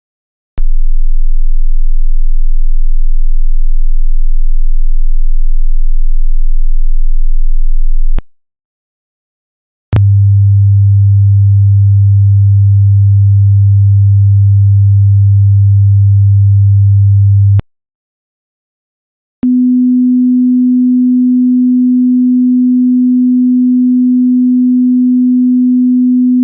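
Three pure electronic test tones, each held steady for about seven to eight seconds with short silent gaps between, each pitched higher than the last. The first is a very low hum with a slight flutter, the second is a deep tone, and the third is a low, steady tone that runs on past the end.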